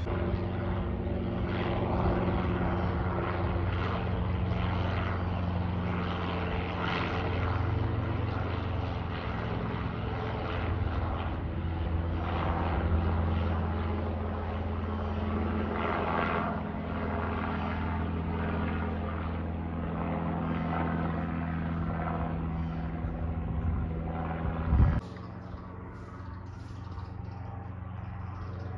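Aircraft engine overhead: a steady hum of several held tones. About 25 seconds in, a brief loud bump, then the sound cuts to a quieter, duller rumble.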